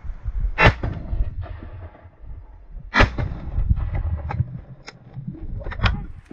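Shotgun shots fired at flying geese: three sharp reports a couple of seconds apart, the first two loudest, over a low rumble.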